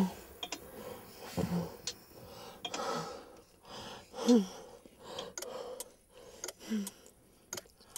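A person breathing, with short gasps or sighs that carry a little voice, four times, and scattered small clicks.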